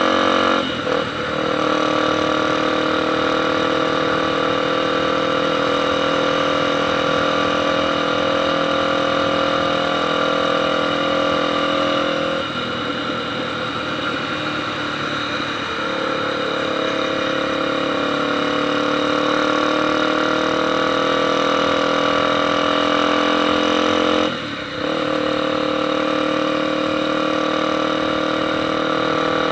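Honda XR Tornado's single-cylinder engine running steadily, its pitch drifting slowly up and down, with a brief drop in engine sound about a second in and again near the end.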